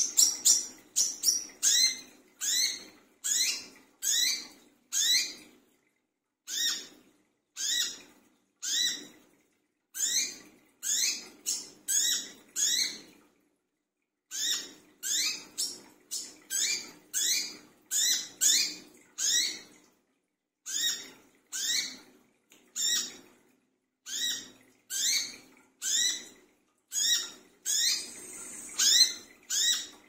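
Brown-throated sunbird (kolibri kelapa) calling: a busy run of sharp, high notes, each falling in pitch, at roughly two a second, with brief pauses between runs. A short hiss comes near the end.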